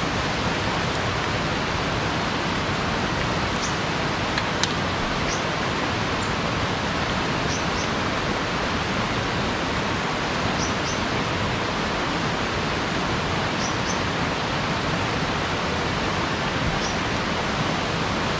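Steady rush of a fast-flowing rocky river, with faint short high peeps every few seconds, often in pairs.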